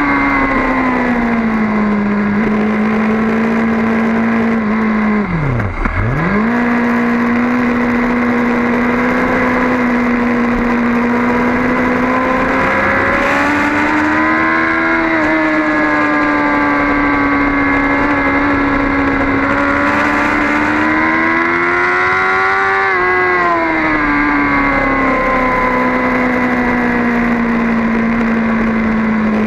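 BMW S1000RR's inline-four engine running hard at high revs. Its pitch falls at first, drops sharply and jumps straight back about six seconds in, then rises and falls slowly twice as the speed changes through the corners.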